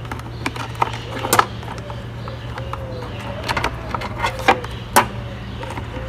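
Vacuum cleaner cord reel and plastic housing clicking and knocking as the reel is worked into its seat, with a handful of sharp clicks, the loudest near the end, over a steady low hum.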